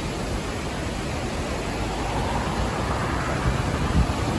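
Swollen river in flood, the fast floodwater rushing as a steady noise, with an uneven low rumble underneath.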